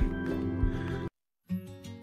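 Background music with steady held notes. It cuts off to complete silence for under half a second about a second in, then starts again with a different pattern, as at a video edit.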